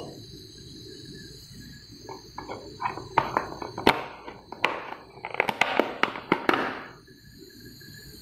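Sharp clicks and light knocks, a few at first and then a quick cluster of them with short scrapes, over a faint steady high whine.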